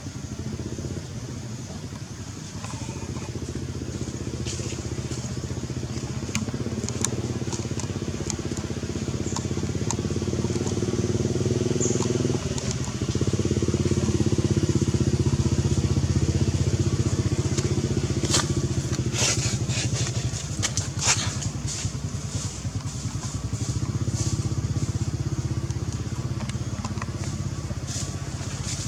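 A small engine running steadily, getting louder toward the middle and easing off again near the end. A few short sharp high sounds come through in the later part.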